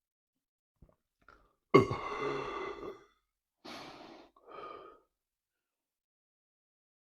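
A man burps loudly about two seconds in, one pitched belch lasting about a second, then breathes out twice in short breathy exhales.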